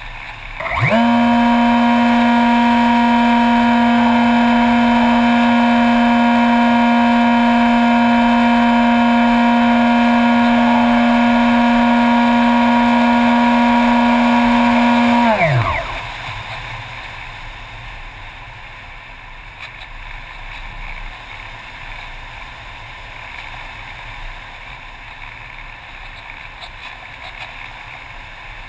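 RC model airplane's motor and propeller spinning up about a second in, holding a steady high drone for about fifteen seconds, then throttled back, its pitch dropping away to nothing. Afterwards only the rush of air over the gliding model remains.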